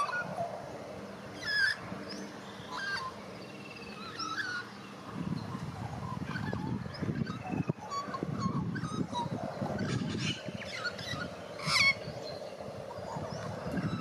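White-backed Australian magpie warbling: a run of short, gliding, pitched notes, with a louder note about a second and a half in and another near the end.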